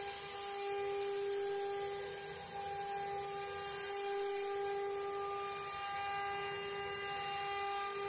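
Multi-spindle CNC wood router with eight spindles carving relief panels in a wooden board together: a steady high whine from the spindles over a constant hiss.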